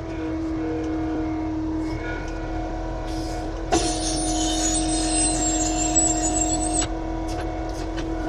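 Heavy construction machine's diesel engine running steadily. From about a third of the way in to near the end, a high whine rides over it for about three seconds as the machine works, then stops abruptly.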